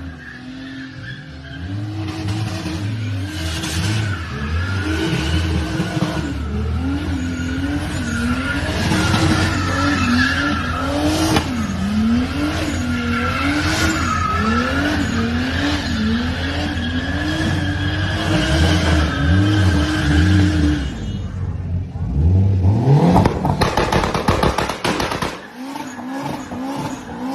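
Car engine revving up and down over and over, with tyres squealing in a wavering screech above it. Near the end the engine climbs sharply in one hard rev.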